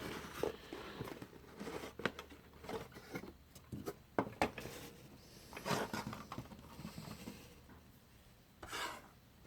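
Packaging being handled as a clock is lifted out of its box: intermittent rubbing and scraping with a few soft knocks scattered through.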